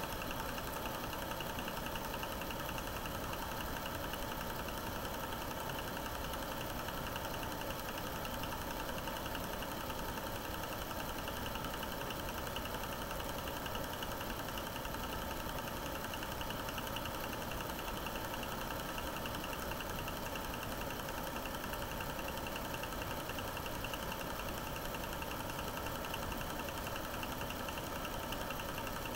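A 9.5mm cine projector running steadily: an even mechanical whirr from its motor and film transport, with a few steady hums.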